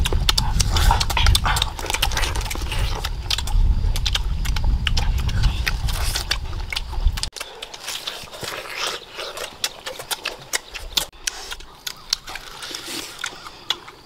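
People biting into and chewing mangoes, with many short mouth clicks and lip smacks. A low rumble underneath stops abruptly about seven seconds in.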